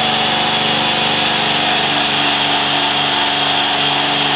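Cordless drill spinning a polycarbide abrasive wheel against a painted steel body panel, stripping the paint to bare metal: a steady, unbroken motor whine with the wheel scrubbing on the metal.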